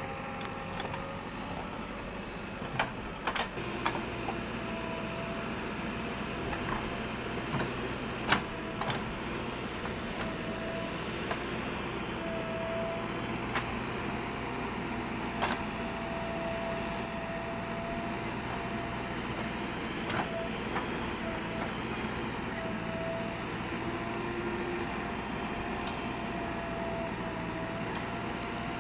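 A motor-driven machine running steadily, with a whine that comes and goes and scattered clicks and knocks, the loudest a few seconds in.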